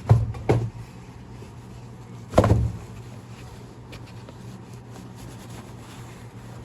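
Three dull thumps, two in quick succession and a heavier one about two seconds later, over a steady low hum.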